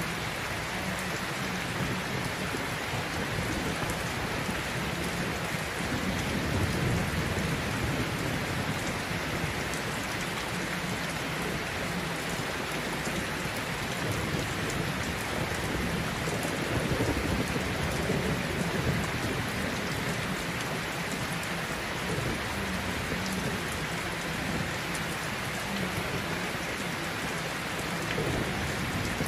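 Steady rain with low rumbles of thunder, swelling twice, about a quarter and a little over half way through.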